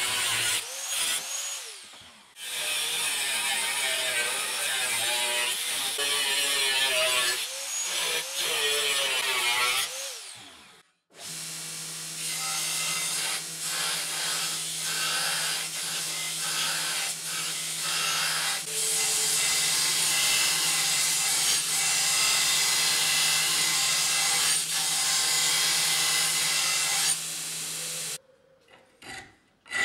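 An angle grinder with a cut-off disc cuts through a steel seed-drill disc, its pitch wavering as it cuts, and stops about ten seconds in. A belt sander then runs with a steady hum, grinding the edge of the cut steel blank, and stops near the end.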